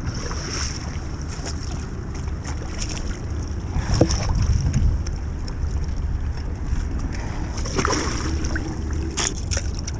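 Wind buffeting the microphone and water washing against shoreline rocks, with a few sharp knocks and clicks. About eight seconds in there is a splash from a hooked striped bass thrashing at the water's edge.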